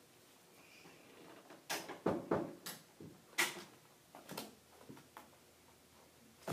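A puppy's paws knocking and scraping against a small plastic tub as she steps into it: a string of irregular short knocks, the loudest bunched together in the middle.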